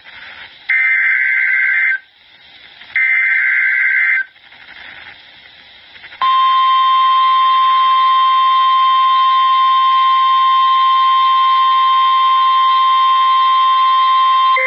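Emergency Alert System broadcast on NOAA Weather Radio: two screeching SAME digital data bursts, each about a second long with a second's gap between them, then radio hiss. About six seconds in, the long steady Weather Radio warning alarm tone starts and holds, signalling an incoming alert.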